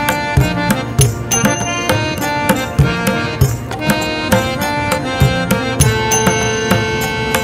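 Instrumental background music: sustained melody notes over a steady drum beat.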